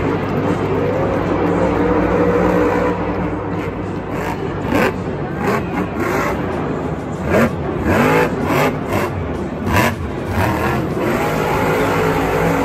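Monster truck engines revving hard, pitch rising and falling, with several sharp bangs partway through.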